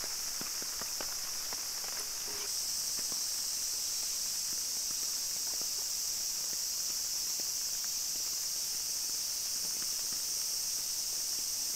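Steady, high-pitched drone of an insect chorus, growing slightly louder about two and a half seconds in, with a few faint clicks in the first couple of seconds.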